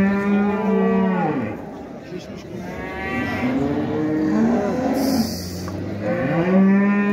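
Cattle mooing: several long moos one after another, a loud one at the start and another loud one beginning about six seconds in.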